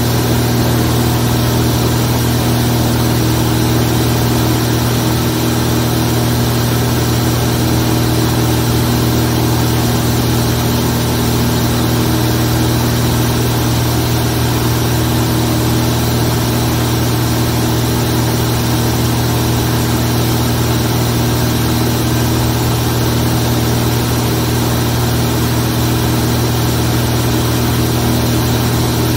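Zlín Z 42 light aircraft's six-cylinder Avia M 137 piston engine and propeller running steadily in flight, a loud low drone that holds one pitch throughout.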